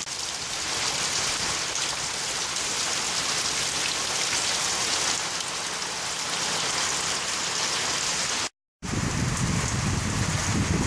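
Steady rain falling, an even hiss. It breaks off for a split second about eight and a half seconds in and resumes with a deeper rumble underneath.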